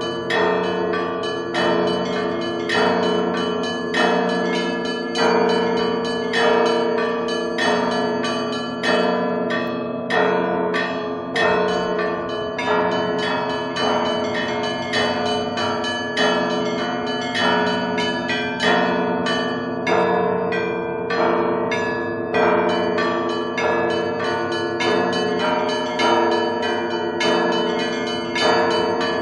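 Bells ringing in a steady, unbroken run of overlapping strikes.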